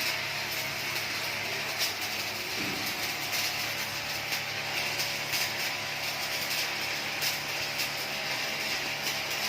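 Electric arc welding on a steel C-channel: a steady sizzling hiss broken by irregular crackles and pops, over the welding machine's low mains hum.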